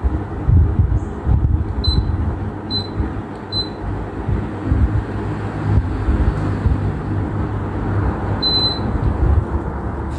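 Ceiling fan running, its moving air making a low, uneven rumble on the microphone. The fan's receiver beeps three times in quick succession about two seconds in and once more near the end, answering button presses on its remote control.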